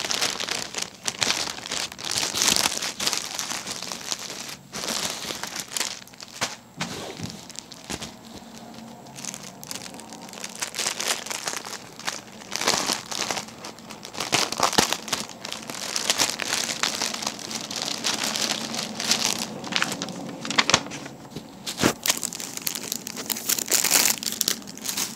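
Small plastic bags of diamond painting drills crinkling as they are handled and sorted, an uneven rustle with a few sharper clicks.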